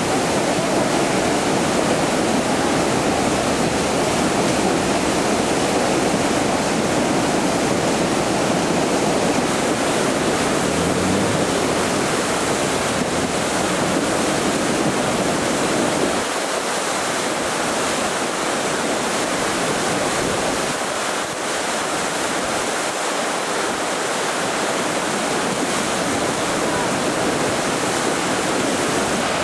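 Muddy river in full flood, its water rushing and churning against a wall in a loud, steady wash of noise. The deepest part of the rush thins a little about halfway through.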